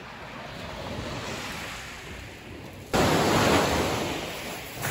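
Sea surf with a light wind hiss, then about three seconds in a wave breaks and its wash rushes up the beach, loud at first and fading away.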